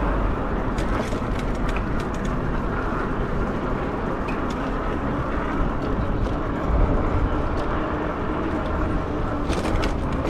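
Steady rush of wind and fat tyres rolling on pavement during a fat-tire e-bike ride, with scattered light clicks and rattles, mostly about a second in and again near the end.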